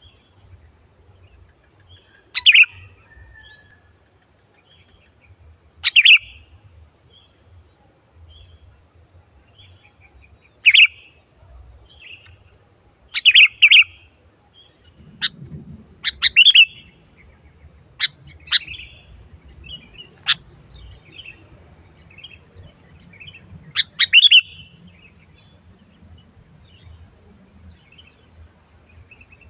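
Sooty-headed bulbul (kutilang) giving short, sharp, clear calls every few seconds at irregular intervals, some of them doubled.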